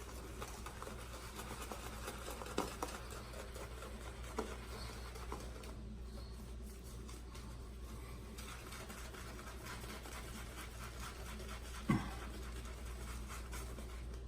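Shaving brush working soap into a lather after a splash of water: a faint, steady scratchy swishing of wet bristles. A few small knocks come about two and a half seconds in, again at about four and a half seconds, and more sharply near the end.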